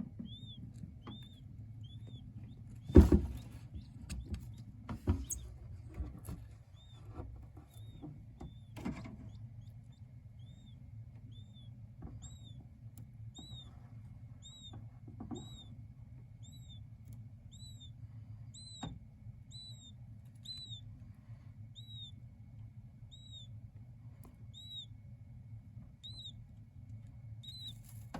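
King quail chicks peeping: short, high, rising-and-falling chirps repeated about one and a half times a second. A steady low hum runs underneath, with a few knocks and scrapes, the loudest about three seconds in.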